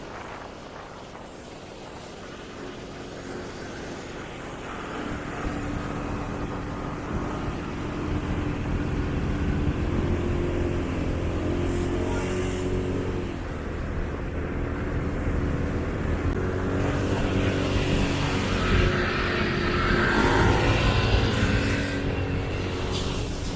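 Motorcycle engine running while riding on the road, with road noise. It grows louder over the first eight seconds or so, then holds a steady pitch.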